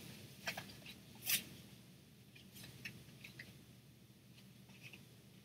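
Faint rustling and scratching of paper with a few light taps as fingers fumble at a small paper booklet tucked into a handmade journal page; the loudest tap comes about a second in.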